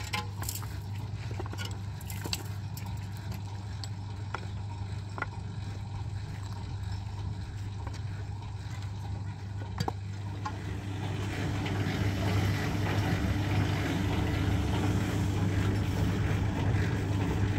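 Portable concrete mixer running steadily, with a few sharp taps from concrete blocks being set in the first half. From about ten seconds in the mixer is heard close up and louder, its turning drum adding a rushing noise over the motor.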